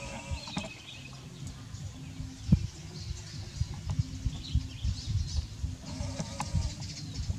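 Baby monkey giving short, high squeaking cries right at the start and again about six seconds in, over low rumble and scattered soft knocks; a sharp knock a couple of seconds in is the loudest sound.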